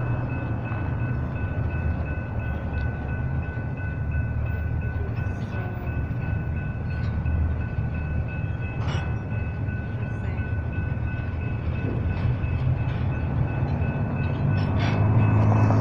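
Union Pacific double-stack intermodal container cars rolling past on steel wheels: a steady rumble with a thin, steady high squeal and scattered clicks. A louder, deeper hum builds near the end.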